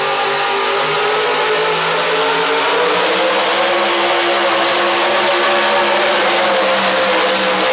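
A loud, high-revving engine of a pulling vehicle at a tractor pull, running at full throttle under load with a nearly steady pitch.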